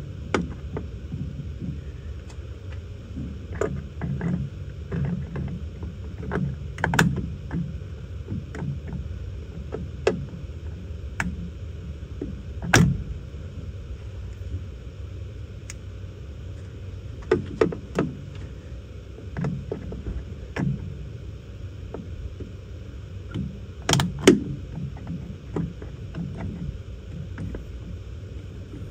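Irregular knocks and clicks of hand-tool work and parts being handled, with the loudest knocks about 13 seconds and 24 seconds in, over a steady low rumble.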